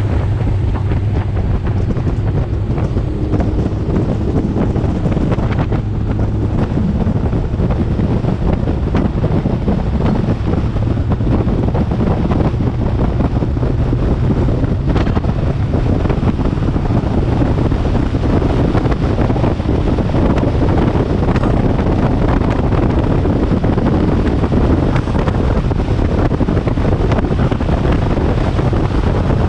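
Heavy wind buffeting on the microphone of a bass boat running at speed, over the steady drone of its Evinrude E-TEC 250 two-stroke V6 outboard as the boat speeds up to about 60 mph.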